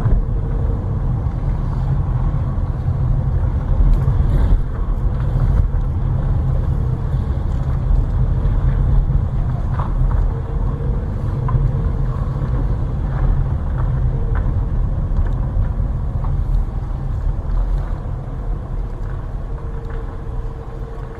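Low, steady rumble of a car's engine and tyres heard from inside the cabin as it drives slowly over worn pavement, getting a little quieter near the end.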